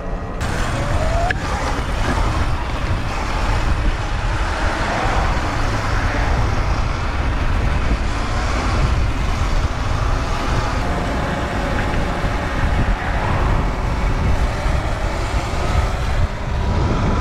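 Ride on an electric dirt bike: wind buffeting the microphone and tyre rumble throughout, with no engine note. A short rising electric-motor whine comes about a second in.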